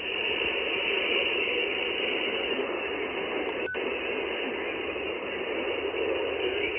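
Steady band-noise hiss from the Wolf RS-998 SDR transceiver receiving 20-meter single sideband with no station talking, cut off sharply above the voice band by the receive filter. A single brief click with a short beep comes about halfway through.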